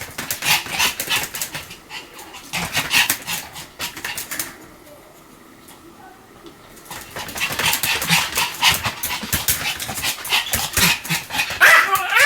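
Pomeranian yapping in rapid runs of short barks, stopping for about two seconds in the middle before starting again.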